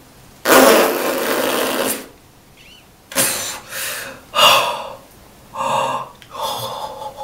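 A woman's wordless vocal straining: one long, breathy blast of air through pursed lips, then four short, strained cries and grunts. These are her reactions while trying to pull Nad's hair-removal gel off her underarm.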